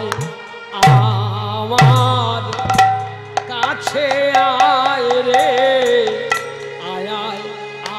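Devotional kirtan music: hand-drum strokes whose deep bass slides down in pitch, twice near the start, over steady held instrument tones, and from about three seconds in a singer's voice carrying a wavering melody.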